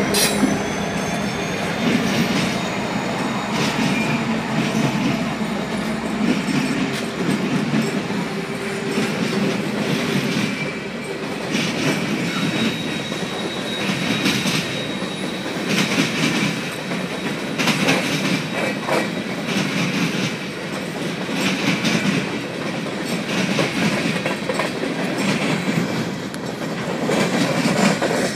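Empty coal hopper cars of a freight train rolling past, their wheels clattering over the rail joints about once every two seconds over a steady rumble, with a brief high wheel squeal about twelve seconds in. The diesel locomotives' engines are heard at the start as they pass.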